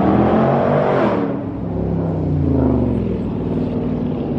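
A motor vehicle accelerating past on the street. Its engine note rises over the first second, is loudest about a second in, then fades away, over a steady low engine hum.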